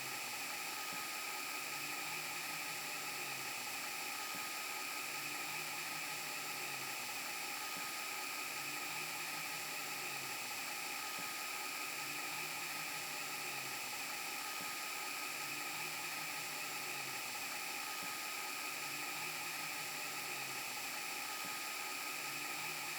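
VHS rewind glitch sound effect: a steady hissing, whirring tape-and-static noise with a few steady high tones in it, and a low warble that comes back about every three seconds.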